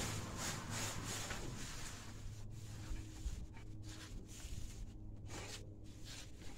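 A cloth sack of harvested bean plants rustling as it is handled and shaken, the stems and leaves brushing out of it. A quick run of rustles in the first second and a half, then fainter, patchier rustling.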